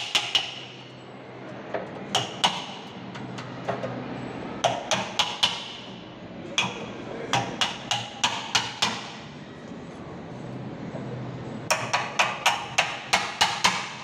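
Hammer striking a wood chisel's capped handle, chopping out a mortise in the edge of a wooden door. The blows come in quick runs of several sharp knocks, about four a second, with pauses between runs.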